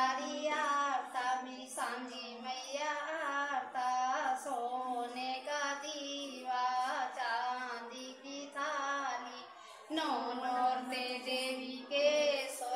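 Girls singing a Sanjhi devotional folk song to the mother goddess in drawn-out, wavering phrases, over a steady low tone.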